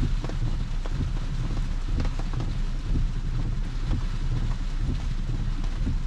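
Heavy rain on the roof and windshield of a stationary Tesla, heard from inside the cabin: a steady low rumble with scattered drops ticking.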